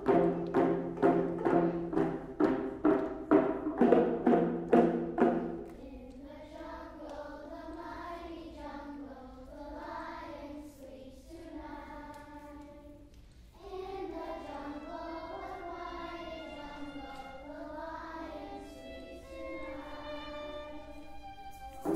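Children drumming together on hand drums with mallets, an even beat of about three strikes a second that stops about five and a half seconds in. Then a slow melody on young students' violins, the notes wavering and sliding in pitch, with a short break midway.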